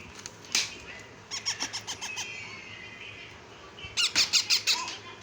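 Ring-necked parakeet chicks calling: one sharp call, then a quick run of about seven short calls, and near the end a louder run of about eight rapid calls.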